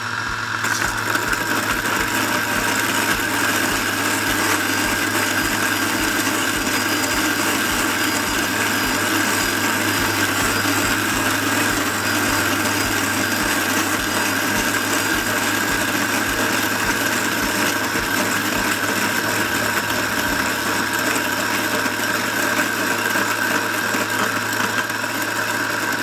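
Kalita NEXT G electric coffee grinder running steadily as it grinds a batch of coffee beans, with a low-pitched motor hum.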